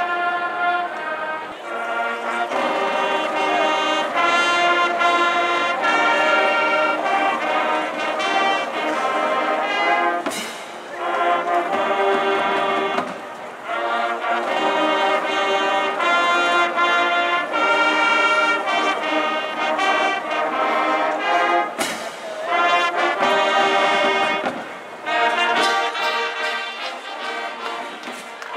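High school marching band playing a brass tune from the stands: trumpets, trombones and sousaphones, with short breaks about ten and thirteen seconds in and a couple of sharp crashes.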